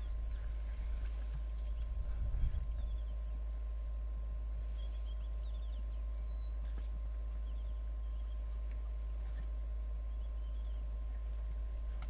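Bush ambience at a waterhole: a steady high insect buzz with scattered short bird chirps over a constant low hum, with a brief low swell about two seconds in.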